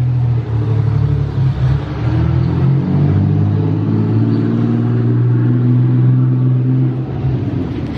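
An engine running close by, loud and steady, its pitch climbing slightly through the middle and dropping off near the end.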